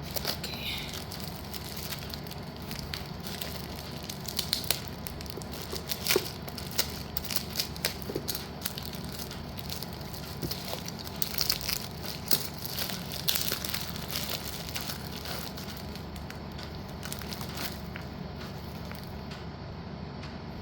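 Crinkling of plastic packaging with sharp clicks and crackles as hard slate pencil pieces are handled, the clicks thickest in the middle stretch and thinning out near the end, over a steady low hum.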